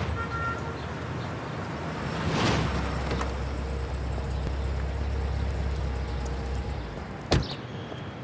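Swooshing whooshes, the loudest about two and a half seconds in, then a steady low hum of a large sedan idling. A single sharp car-door shut comes about seven seconds in.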